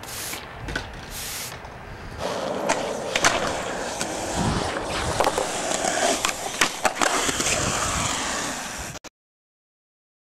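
Skateboard wheels rolling on concrete, a steady rushing with repeated sharp clacks and knocks of the board. The sound cuts off suddenly about a second before the end, leaving dead silence.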